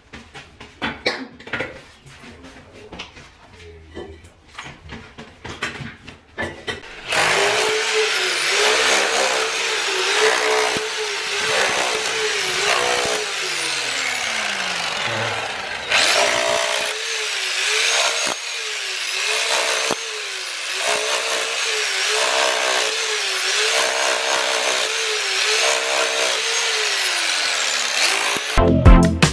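Electric rotary hammer with a chisel bit chipping old tiles and plaster off a masonry wall: a loud, steady motor with the chisel rattling against the wall. It starts about seven seconds in. Around the middle it is let off, its motor winding down, then starts again.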